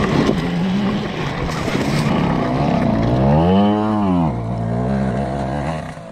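Gas dirt bike engine running steadily, revved up and back down once about three and a half seconds in.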